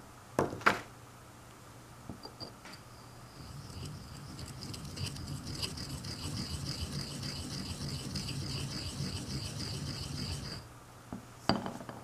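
Ink stick ground on an inkstone: a scratchy, evenly pulsing grind that lasts about seven seconds and stops abruptly, the noisy grind of a low-quality ink stick. Two sharp knocks come just before it and another near the end.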